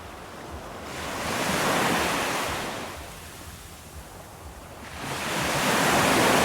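Ocean waves breaking and washing in, two swells that each build and fade, a sound effect of waves rocking a floating bear.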